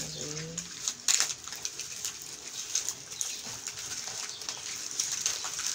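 Artificial pine garland and a pinecone crackling and rustling as they are handled and pulled apart by hand, with many small irregular clicks and crinkles. A brief low hum sounds at the start.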